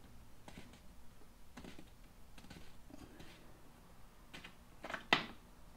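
Faint scattered clicks and taps of a cap being popped open by hand on the motorcycle's oil drain tube, with a couple of sharper clicks near the end.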